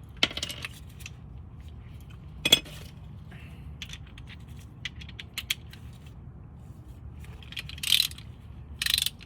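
Torque wrench with a 17 mm socket tightening the rear brake caliper bolts to 65 ft-lb: scattered sharp metallic clicks, a louder clack about two and a half seconds in, and two short ratcheting bursts near the end.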